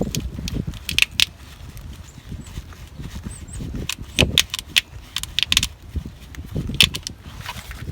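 Irregular metallic clinks and clicks of a wrench working on a fuel line fitting while it is tightened up.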